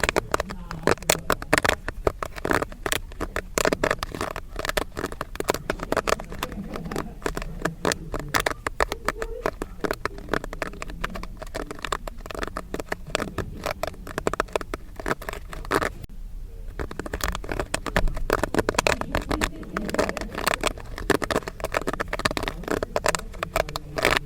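Popcorn popping: a dense, irregular run of sharp pops and crackles from bursting corn kernels, with a brief lull about sixteen seconds in.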